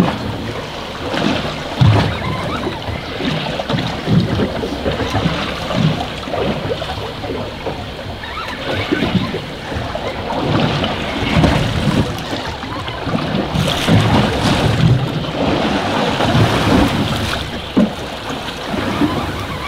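Wind buffeting the microphone in irregular gusts over the wash of waves against a drifting boat on open, choppy sea.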